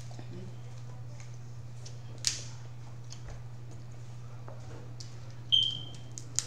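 Quiet eating of boiled shrimp: scattered soft mouth and shell clicks, a sharp crack about two seconds in, and a sudden sharp sound with a brief high squeak about five and a half seconds in, over a steady low hum.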